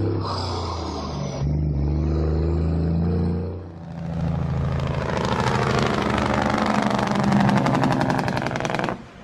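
Heavy truck engine running, its pitch shifting in steps, then a louder, rapidly pulsing rev that builds from about four seconds in and cuts off suddenly near the end.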